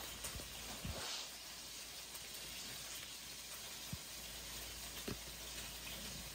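Faint steady hiss with a few soft, brief taps of gloved hands laying sliced cold cuts onto a bread roll.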